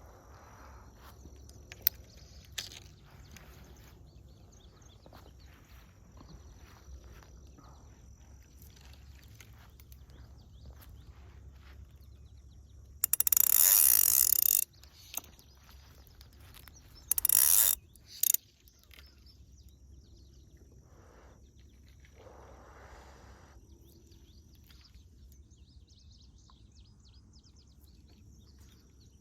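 Quiet pond-side outdoor ambience with an insect's steady high buzz. Twice in the middle, a fly reel's click-and-pawl drag buzzes sharply as line is stripped off it: first a burst of about a second and a half, then a shorter one.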